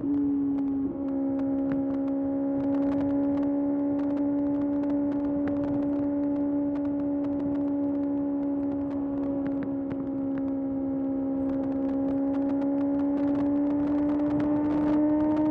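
Kawasaki ZX-6R's 636 cc inline-four engine pulling at steady high revs while riding, with a brief dip about a second in, then the revs rising slowly near the end.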